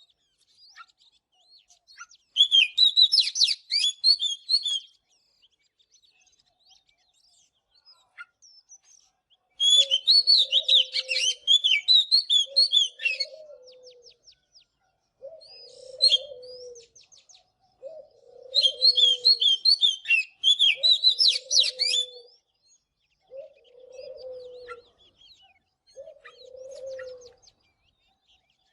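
Oriental magpie-robin singing: three bursts of fast, varied, whistled song phrases a few seconds long, separated by pauses. From about ten seconds in, a low cooing note repeats about every two seconds underneath.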